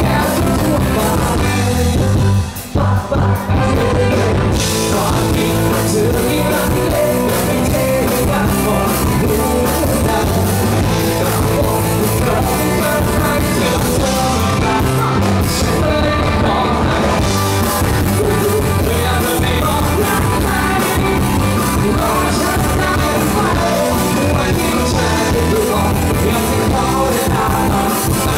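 Live rock band playing a song with a singer, loud and steady, amplified through a stage PA. The music drops out briefly about two and a half seconds in, then carries on.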